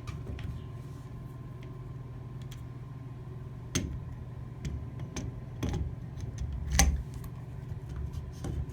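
Scattered light clicks and knocks as a new plastic Delta shower cartridge is handled and set into the valve body. The loudest knock comes nearly seven seconds in.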